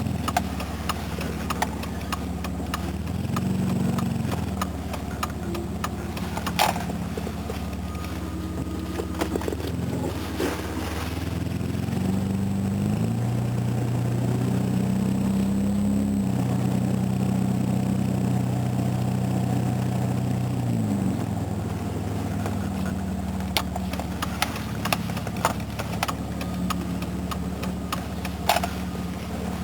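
Jaguar XJ6 Series 3 engine running as the car is driven slowly, the engine note rising briefly about three seconds in and again for a longer stretch in the middle before settling back. Scattered sharp clicks sound over it.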